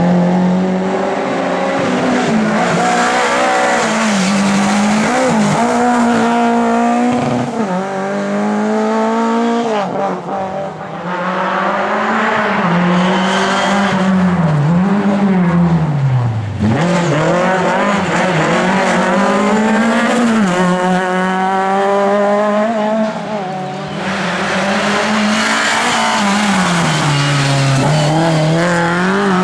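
Lada race car engines running hard, the pitch climbing and dropping again and again with gear changes and lifts off the throttle, with tyres squealing through the corners.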